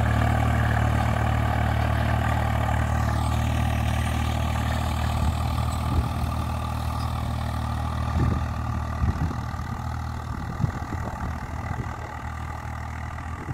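Diesel tractor engine running steadily while pulling a plough through the soil, slowly growing fainter as the tractor moves away. A few short knocks come near the middle.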